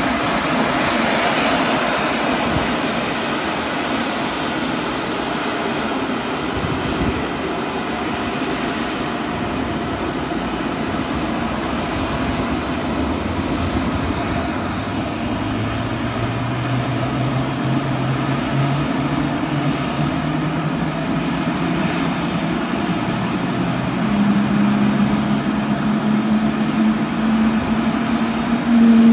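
F/A-18 Super Hornet jet engines running on the ramp: a steady loud rush with a thin high whine over it. From about halfway a low hum comes in and climbs slowly in pitch, louder near the end.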